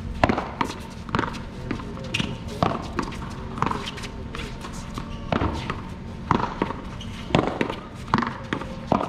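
Paddleball rally: sharp smacks of paddles hitting the small rubber ball and of the ball striking the wall, coming irregularly about one or two a second, with several louder hits in the second half.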